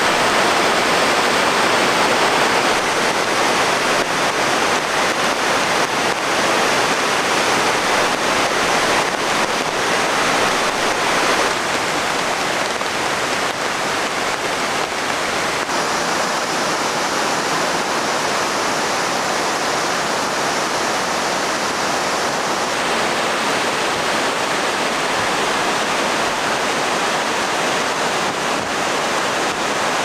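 Steady rush of a waterfall pouring into a stream, a continuous even wash of water noise. Its tone changes abruptly a few times, about a quarter, a third and halfway through.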